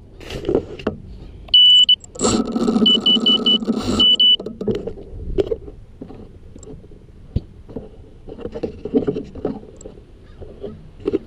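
An FPV quadcopter's beeper gives a short high beep, then four quick beeps and a longer one, over about two seconds of loud rushing noise. Scattered knocks and rustles of handling follow as the drone is picked up.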